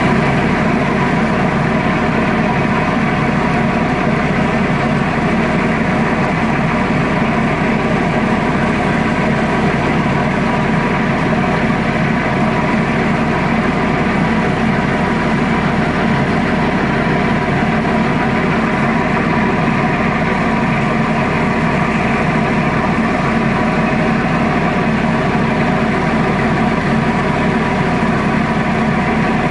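Tugboat's diesel engine running steadily under towing load: a loud, unchanging drone with a steady hum.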